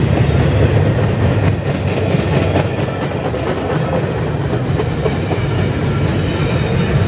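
Container well cars of a CSX freight train rolling past: a steady rumble with the clatter of steel wheels on the rails.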